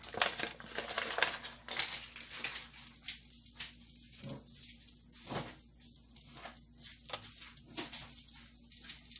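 Butter melting in a hot nonstick frying pan, crackling and sizzling with irregular small pops, dense for the first couple of seconds and then sparser.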